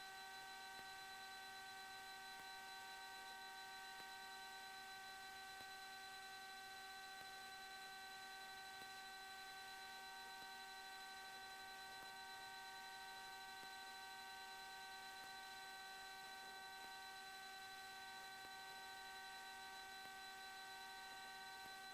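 Near silence on a cockpit intercom audio feed: only a faint, steady electrical hum of several fixed pitches, with no engine noise or voices coming through.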